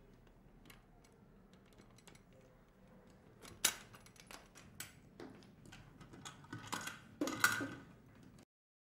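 A small key working a padlock on a stainless steel canister's latch: scattered metal clicks and clinks, a couple of sharper clinks midway, then a louder clatter of the steel lid near the end as the canister is opened. The sound stops suddenly shortly before the end.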